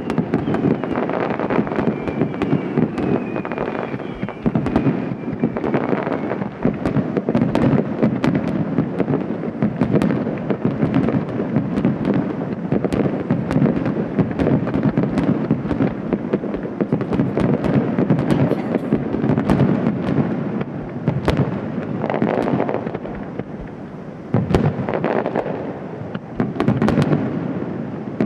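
A rapid-fire starmine barrage of large aerial fireworks shells bursting in close succession, the booms overlapping into a continuous rumble. A faint whistle sounds in the first few seconds.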